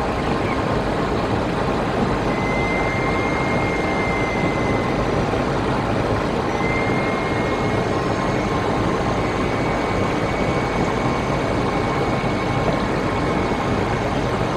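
Steady rushing noise of airflow and engines inside a jet airliner's cockpit on approach, with a faint thin high tone that comes and goes.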